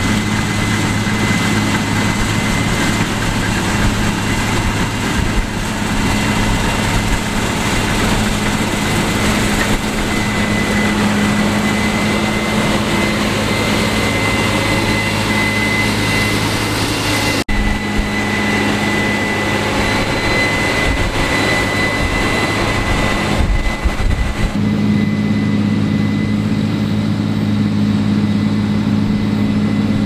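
Case combine harvester with a draper head running as it cuts soybeans: a steady heavy diesel drone with a thin high whine over it. There is a brief dropout a little past halfway.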